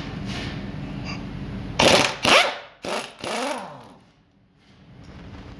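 Socket wrench and metal tools working bolts on the casing of a Mercedes-Benz Actros truck gearbox, with two loud clatters about two seconds in, over a steady hum.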